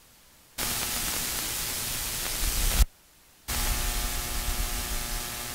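Deep breathing close to the microphone, heard as loud hissing breath noise with a low rumble of air on the mic. One breath of about two seconds ends sharply, and after a short pause a second long breath follows.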